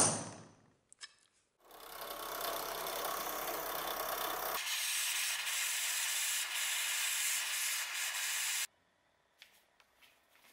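A single hammer blow on a centre punch against the steel tang on an anvil, ringing off briefly. Then a drill press runs for about three seconds, followed by a handheld butane torch hissing steadily for about four seconds as it heats the tang to temper it, since the steel was too hard to drill.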